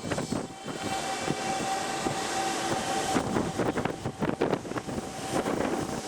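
Toei Asakusa Line 5300-series electric train pulling out of the station, its traction motors giving a steady whine over a hiss, with many irregular clicks and knocks from the running gear.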